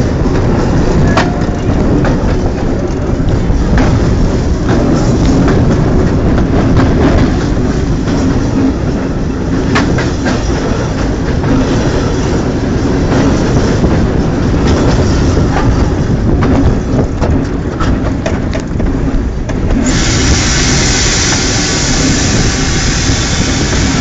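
Train running on the rails: a heavy, steady low rumble with scattered sharp clicks. A steady high hiss comes in suddenly near the end.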